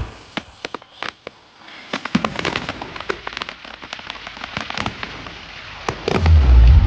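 Fireworks crackling and popping in rapid strings of sharp cracks. About six seconds in, loud bass-heavy music comes in over them.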